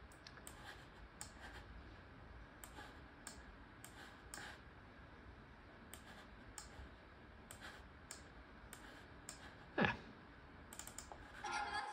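Quiet computer mouse clicks, about two dozen at an uneven pace, with one louder knock about ten seconds in. Near the end, sound from the videos starting to play comes in with music.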